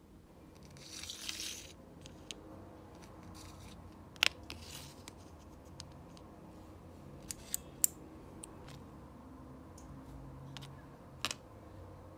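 Plastic Lego pieces being handled: a brief rustling scrape of pieces shifted about a second in, then several sharp clicks as plates are pressed together and set down.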